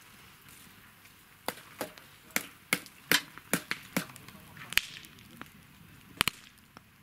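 Wood fire crackling in a metal fire basket: a dozen or so sharp, irregular pops over a faint hiss.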